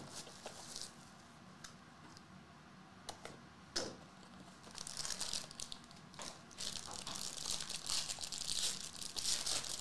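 Plastic wrapping on hockey card packs being crinkled and torn open, with a couple of sharp snaps about three to four seconds in, then steady crinkling that runs to the end.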